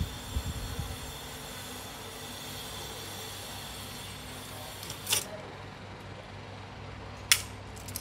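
Pliers and small metal clock parts being handled: a few dull bumps in the first second, then two sharp clicks about five and seven seconds in, the second the loudest, over a steady faint hiss.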